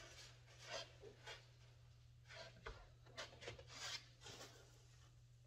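Near silence: a few faint rustles and light taps of hands handling wooden boards and digging into a canvas tool apron pouch, over a low steady hum.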